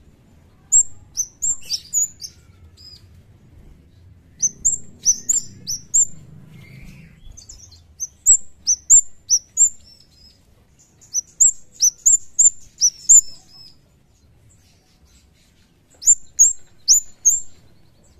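Scarlet-headed flowerpecker (kemade, cigen) calling: runs of sharp, high chip notes that slide downward, each run a few seconds long, coming five times with short pauses between.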